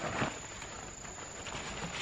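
Irregular rustling and crunching strokes, loudest just after the start, over a steady thin high tone.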